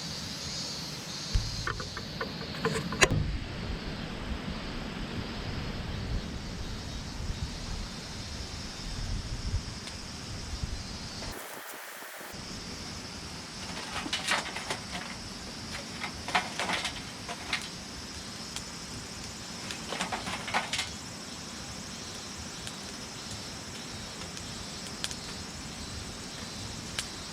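Charcoal being lit in a chimney starter: scattered crackles and clicks over a steady hiss, with a sharp click about three seconds in and crackles in clusters later on.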